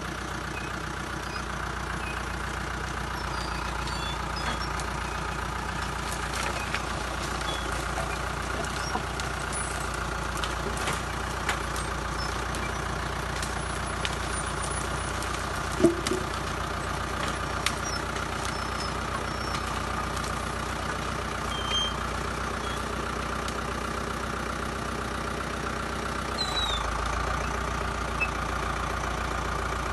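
Engine of a heavy forestry machine running steadily, with scattered clicks and one sharp knock about sixteen seconds in.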